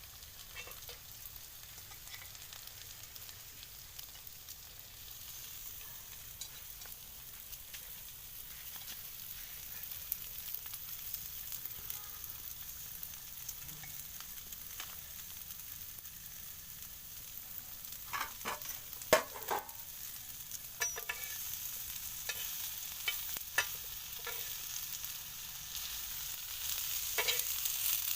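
Vegetables frying in hot oil in a pan, a steady sizzle, with a spatula stirring and scraping against the pan now and then, more often about two-thirds through and near the end.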